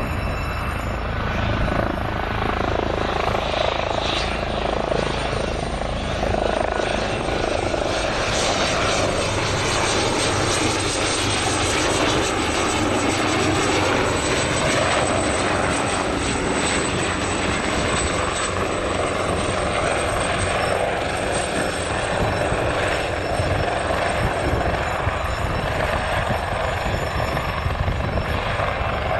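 For the first few seconds, a small piston-engined trainer's engine as it touches down. Then a Leonardo (AgustaWestland) AW139 twin-turbine helicopter flies in and hovers close by: steady rotor noise with a high turbine whine that grows stronger several seconds in.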